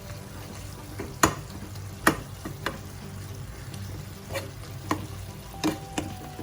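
A spoon stirring food that is sizzling in a pan, with about seven sharp, irregular clinks of the spoon against the pan.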